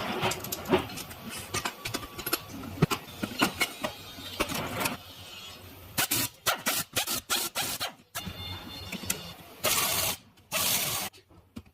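Workshop sounds of metal tools and engine parts: many sharp clicks and knocks, then several short, loud bursts of noise that start and stop abruptly.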